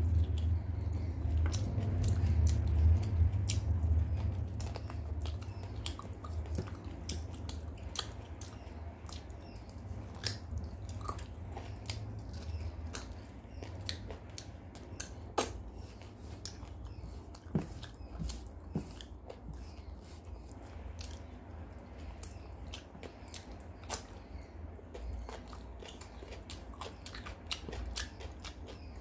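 Close-miked chewing of a mouthful of rice and chicken curry, with wet mouth clicks and lip smacks. It is densest in the first few seconds, then thins to scattered smacks and clicks as fingers are licked clean.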